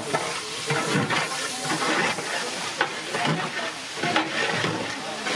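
Long-handled metal ladle stirring and scraping chopped onions and okra around a large metal pot, the vegetables sizzling as they fry. The scraping strokes come irregularly, about one every second or so, over a steady sizzle.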